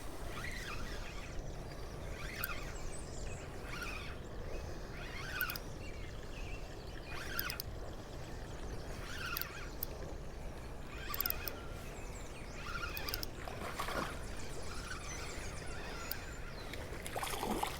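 Quiet outdoor creekside ambience: a steady low rush with faint, short chirps and ticks every couple of seconds.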